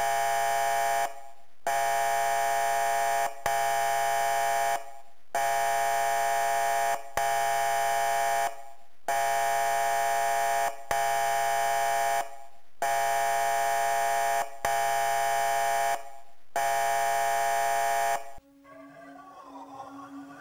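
Harsh alarm buzzer sounding in about ten even blasts of a second and a half each, with short breaks between. It stops near the end, when faint music begins.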